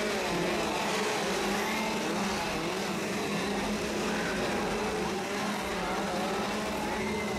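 Several chainsaw engines running and revving together, their pitch wavering up and down.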